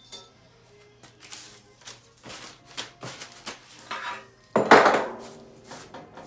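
Plastic cable ties clicking and rattling as handfuls are dropped into grey painted steel tubes of a storage rack, then a loud plastic bag crinkling for about a second near the end.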